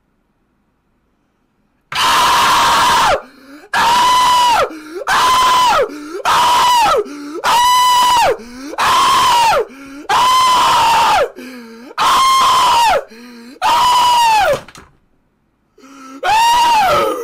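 A young man screaming over and over, his lips swollen from a shot-glass suction lip challenge. After a couple of seconds of near silence come about ten loud, high-pitched screams of about a second each, each held and then dropping in pitch at the end.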